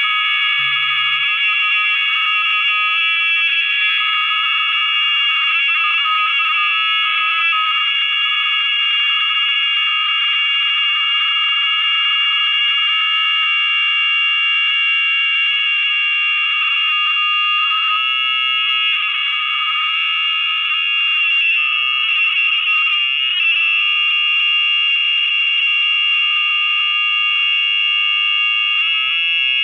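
A loud, steady high-pitched electronic howl made of several tones held at once, with a slight flutter: audio feedback from a phone screen-recording its own playback.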